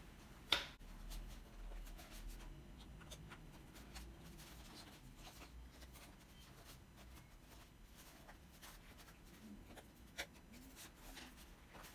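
Faint handling noise from a foam RC model airplane being worked on by hand: scratchy rustling and small plastic clicks as tail parts are fitted, with a sharp click about half a second in and another near the end.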